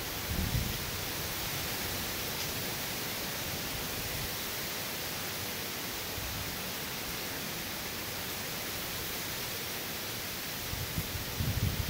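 Hurricane rain and wind as a steady, even hiss, with low gusty rumbles about half a second in and again near the end.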